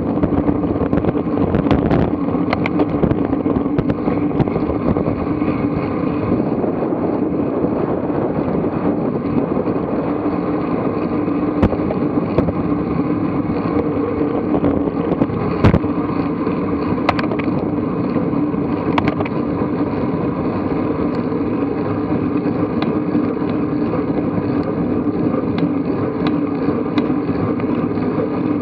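Steady rushing noise of a bicycle being ridden along an asphalt street: wind on the camera microphone mixed with tyre and road noise. A few sharp knocks break it, the loudest about halfway through, as the bike goes over bumps and cracks.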